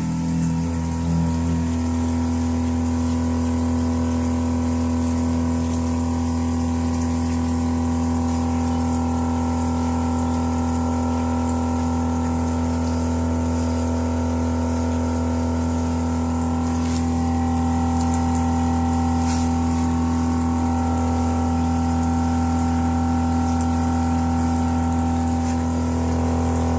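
Resun ACD80 AC/DC air pump running on mains power: a loud, steady hum.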